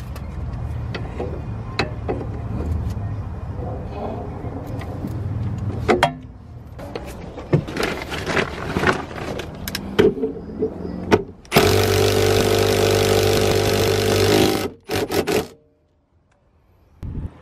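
Impact wrench running for about three seconds, tightening the 14 mm top-hat nut on a coilover strut to set the spring preload; it cuts off sharply. Before it, a low steady hum with scattered clicks and knocks from tools and parts being handled.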